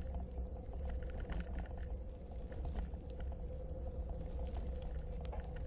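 Bicycle tyres rolling over a packed gravel trail: a steady low rumble with a dense, irregular crackle of small stones under the tyres, and a steady hum underneath.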